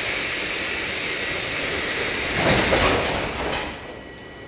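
Metro car's sliding doors closing: a loud hiss, the doors shutting with a thud about two and a half seconds in, then the hiss cutting off shortly before the end.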